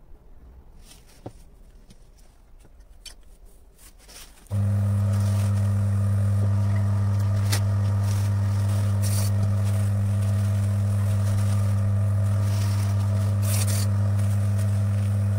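A few faint clicks, then about four and a half seconds in the electric motor of a Timken-type friction tester switches on and runs with a steady mains hum. A tissue held against the spinning brass roller to clean it makes brief scrapes over the hum.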